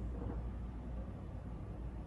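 Pneumatic vacuum elevator with its machinery mounted outdoors, the cabin travelling between floors: a quiet, steady low hum with a soft airy hiss.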